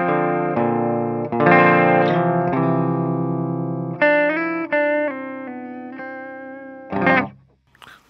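Clean electric guitar tone from a Gibson Les Paul Studio through a Marshall JTM45-clone valve amp: chords played one after another and left to ring, then a short final strum near the end that is cut off. The Ibanez Echo Shifter delay is still bypassed, so this is the dry clean tone.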